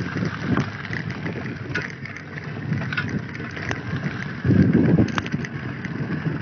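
Bicycle rolling fast over a rough dirt road, with wind rumbling on a handheld phone's microphone and scattered clicks and rattles from the bike. A louder rumble lasts about half a second, about two-thirds of the way in.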